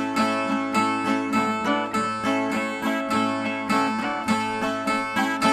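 Nordestino repentista viola (the ten-string guitar of cantoria) strummed in a quick, steady rhythm of about three strokes a second: the instrumental interlude played between sung stanzas of a repente.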